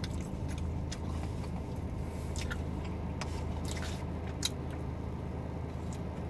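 Car engine idling with a steady low hum, heard inside the cabin, with a man chewing and a few short mouth clicks as he eats.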